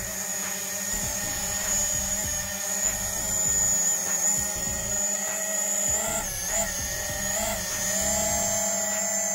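Mini quadcopter drone's motors and propellers whining steadily at a high pitch, the pitch wavering twice about six and seven and a half seconds in, with background music.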